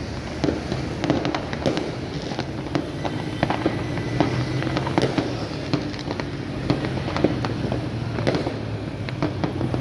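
Many fireworks and firecrackers going off at once: an irregular stream of sharp bangs and pops, some near and loud, others distant, over a continuous background din of far-off explosions.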